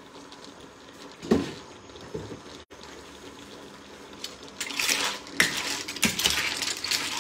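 A single sharp metal knock about a second in, then from about four and a half seconds on a large metal spoon stirring mussels and clams in a stainless steel sauté pan: shells clattering and the spoon scraping and knocking against the pan.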